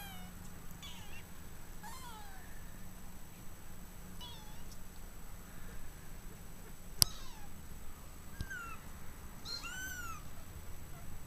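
Sixteen-day-old Maine Coon kittens mewing: short, thin, high-pitched cries at irregular intervals, many rising and falling in pitch within the cry. A single sharp click about seven seconds in is the loudest sound.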